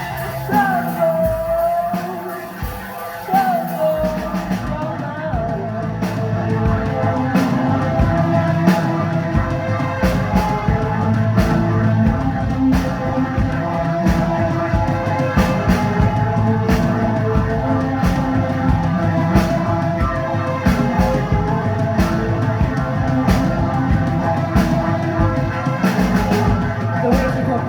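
Rock band playing live with singing. Over the first few seconds the voice carries the sound; then the drum kit and the full band come in about four seconds in and play on with a steady beat.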